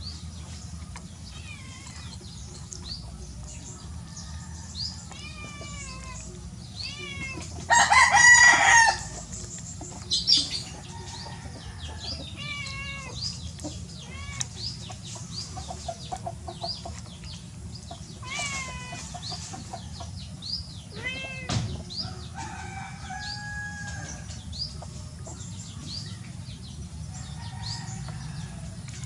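A rooster crows once, loudly, about eight seconds in. Around it chickens cluck and small birds chirp in short, repeated calls.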